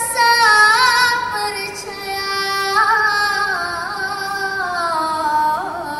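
A young girl singing a Malay asli-style song into a microphone, holding long notes with a wavering, ornamented pitch and starting a new phrase about halfway through.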